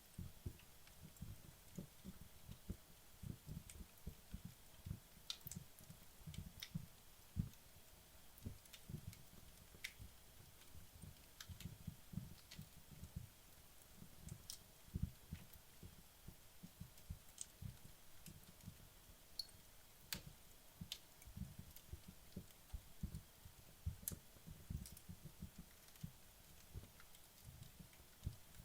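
Wood fire in a fireplace crackling faintly as the logs burn down: frequent soft low pops with scattered sharp, irregular crackles.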